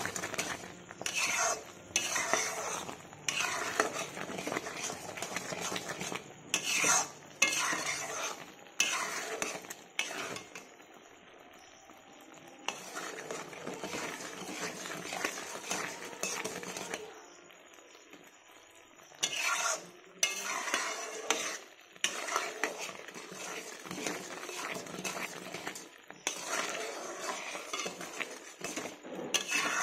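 Metal spatula stirring and scraping around a metal kadai of bubbling jaggery syrup in repeated strokes, with a sizzling simmer underneath. The stirring pauses twice, about eleven and eighteen seconds in, leaving only the quieter bubbling.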